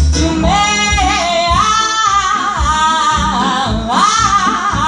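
Live band music: a singer holds long, wavering notes over the band's accompaniment, drawing out the end of a blues line.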